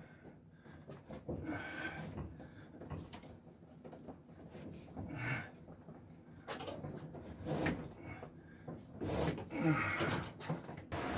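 Irregular knocks, bumps and scrapes of wooden cabinetry being handled, with a sharper knock about ten seconds in.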